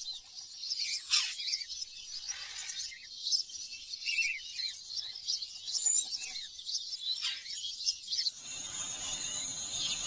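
A chorus of small forest birds, many short chirps and calls overlapping. About eight seconds in, a steady high hum and a denser background with music take over.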